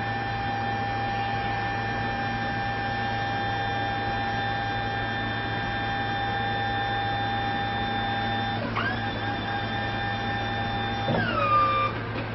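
Toyota 6BWS20 24-volt electric walkie stacker's hydraulic pump motor whining steadily as it raises the forks up the three-stage mast. The whine dips briefly and recovers about 9 seconds in, then falls in pitch and grows louder about 11 seconds in before cutting off near the end.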